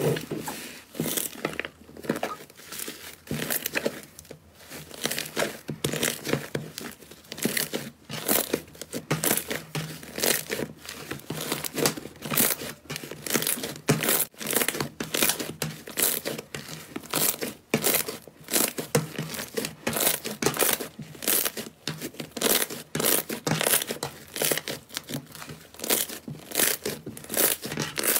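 Hands kneading and squeezing a large mass of thick, puffy slime, each press giving a short crackly squish, about two a second.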